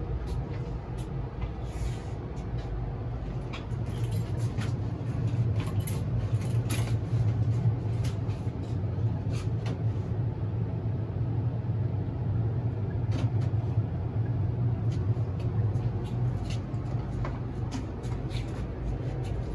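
Steady low hum of a newly installed Day & Night 95% high-efficiency gas furnace running in heating mode, its burner and blower on. Scattered light clicks sound over it.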